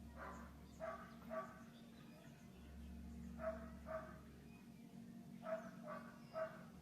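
A dog barking in three short bursts, about eight barks in all, faint, over a steady low electrical hum.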